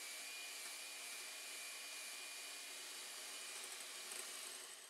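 Electric hand mixer running at a steady speed, its beaters whipping egg whites with sugar in a glass bowl: an even whirr with a thin high motor whine, dying away at the very end.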